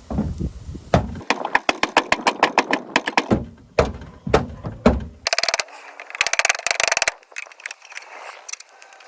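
Breaker-bar handle hammering a dented car body panel out from behind: a fast run of metal knocks, about six a second, then a few single heavier knocks, then a spell of rattling and scraping.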